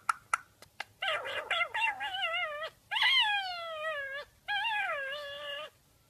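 Indian ringneck parakeet calling: after a few short clicks, three drawn-out, wavering calls that slide down in pitch, the middle one the longest and loudest.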